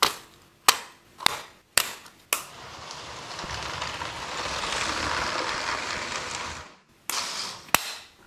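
A run of five sharp plastic clicks about half a second apart as LEGO train track pieces are set down, then a LEGO train running along the track, its noise swelling and fading over about four seconds. Two more clicks follow near the end.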